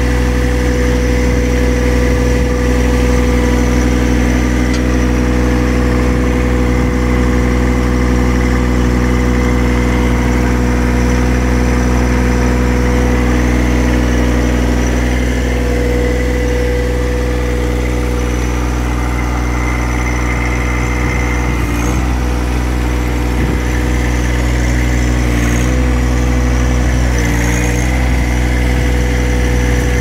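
Compact tractor engine running steadily while driving the hydraulics of a tractor-mounted tree spade, with a few brief wavers in pitch in the second half.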